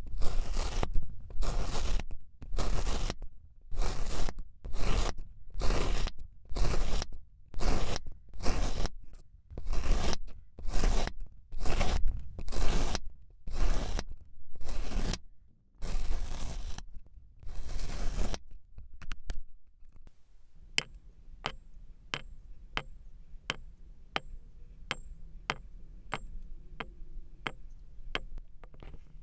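Kinetic sand being cut in repeated noisy strokes, a little more than one a second, for most of the clip. The strokes stop about 18 seconds in and give way to a quieter run of light, sharp clicks.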